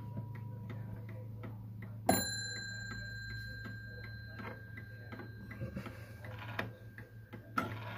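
Antique Sessions mantel clock ticking, with a single strike on its bell about two seconds in: the half-hour strike as the minute hand reaches the half hour. The bell's thin high ring fades over several seconds.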